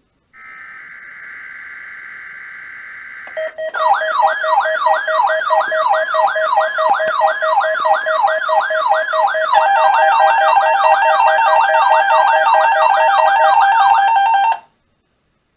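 Mock emergency-alert (weather radio) test signals: a few seconds of buzzy digital data-header tone, then a loud alarm tone begins, a sweeping tone repeating about three times a second over a steady lower tone. About ten seconds in, more steady tones join the alarm. It cuts off sharply near the end.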